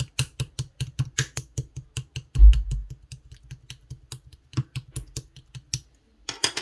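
Clear slime with cherry-blossom toppings being pressed and poked, making quick crisp clicks about four to five a second, with one heavy thump about two and a half seconds in and a short crackle near the end.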